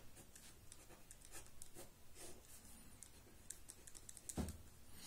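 Ballpoint pen scratching faintly on paper in short strokes, drawing lines and writing letters.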